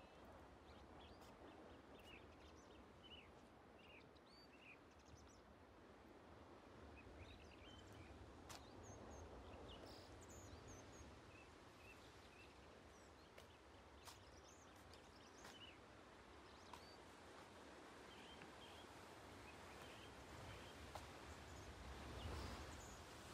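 Faint outdoor ambience: a low rumble of wind and the sea below, with small birds giving short, high chirps now and then.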